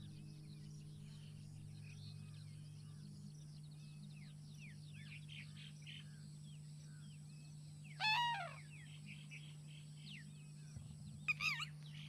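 Wild birds chirping and calling steadily, with two louder, harsher bird calls, one about two-thirds of the way in and a short double call near the end. A faint steady hum runs underneath.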